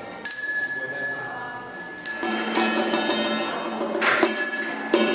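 A metal bell is struck twice, about a quarter-second in and again about two seconds in, each strike ringing on with high, steady tones that slowly fade. Lower tones sound along with the second strike, and a short noisy crash comes near the end.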